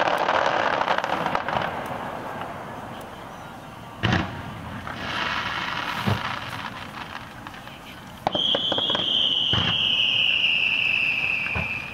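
Fireworks display: the crackle of a fading burst, two sharp booms a couple of seconds apart, then a long, loud whistle falling slightly in pitch, with a few more thumps beneath it.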